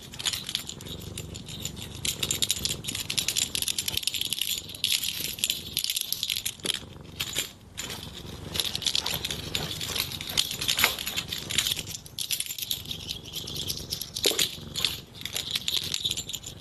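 Rapid rattling of small hard objects being shaken, in spells with brief pauses.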